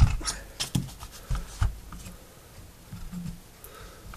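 Sharp clicks and knocks of a Ruger 10/22 action being handled, its metal parts tapping as the trigger group is worked loose from the receiver. About six in the first second and a half, then quieter handling.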